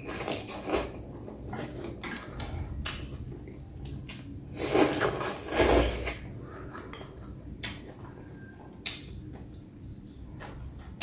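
Close-up eating sounds: chewing and slurping rice vermicelli noodle soup, with irregular clicks of wooden chopsticks against a glass bowl. Two louder slurping bursts come about five and six seconds in.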